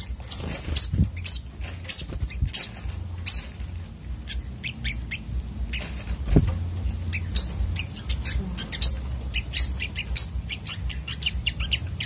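Sunbirds calling in quick succession: short, high, sharp chirps, several each second, thinning out around four to six seconds in, over a low background hum. About six seconds in there is one soft thump.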